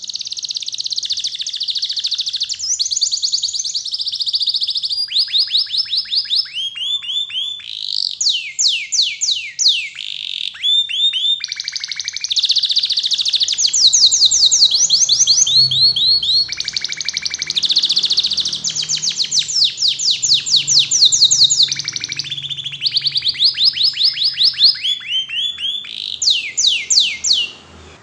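Canary singing a long, continuous song made of rapid trills: runs of quick repeated notes and fast downward-sweeping notes, switching to a new trill every second or two.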